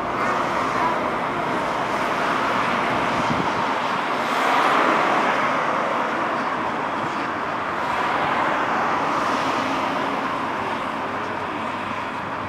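Steady motorway traffic noise, a constant rush of tyres and engines, swelling briefly about four seconds in and again around eight seconds as vehicles pass.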